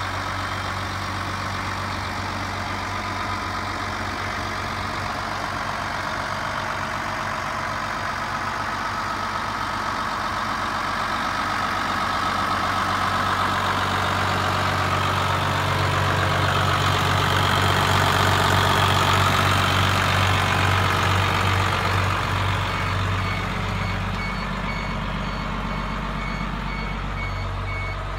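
New Holland TM190 tractor's six-cylinder diesel engine idling steadily, growing louder in the middle and easing off again. Late on, an electronic warning beeper starts pulsing rapidly over the engine.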